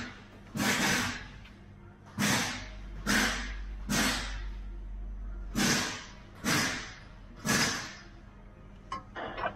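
A series of about eight short scraping strokes, roughly one a second with a couple of longer gaps, from hand work on the steel slider mounting under the vehicle.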